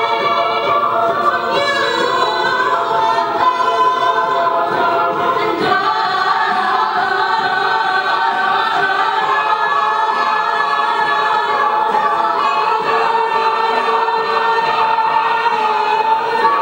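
Mixed-voice a cappella group singing live, the backing singers holding sustained chords under a female lead at the microphone. The chords shift a few times and never break.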